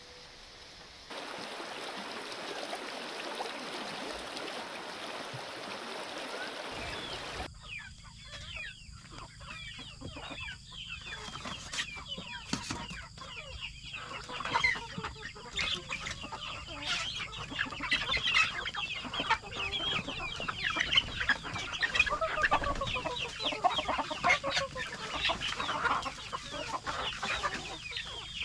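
A steady hiss for the first several seconds, then a flock of chickens clucking and calling in short overlapping notes that grow busier toward the end.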